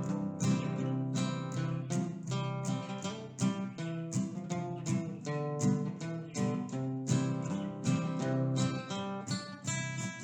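Instrumental acoustic guitar music, picked notes in a steady flow with no singing.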